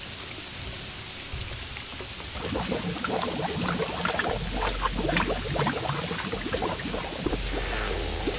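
Rain falling steadily, with scattered drips and splashes that grow louder about two seconds in.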